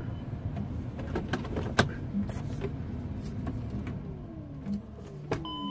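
Steady low hum inside a car cabin with scattered clicks and knocks. A steady electronic tone sounds briefly at the start and comes on again near the end.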